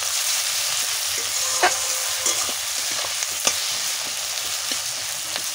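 Onions and crushed garlic sizzling in hot oil in an aluminium kadai while a flat metal spatula stirs them. The spatula scrapes and clicks sharply against the pan a few times.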